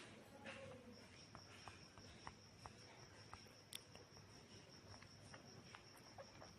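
Near silence: room tone with a faint, steady high-pitched tone coming in about a second in and a few soft clicks.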